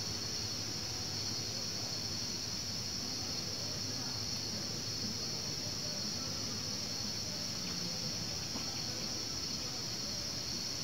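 Insects chirring in one steady, unbroken high-pitched chorus.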